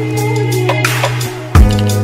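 Background music with a steady beat: held bass notes under regular percussion hits, with a heavy kick drum about one and a half seconds in.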